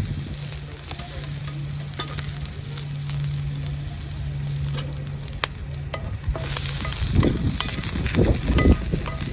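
Steak frying over a campfire, sizzling and crackling, and growing much louder about six seconds in. A steady low hum runs underneath until then.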